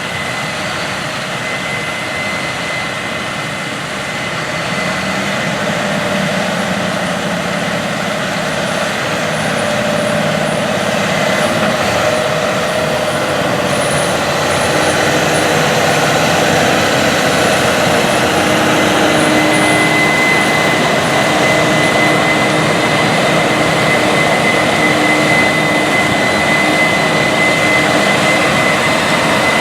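Case IH 9240 Axial-Flow combine running under load while harvesting wheat: a steady heavy machine drone with a high whine over it, growing gradually louder.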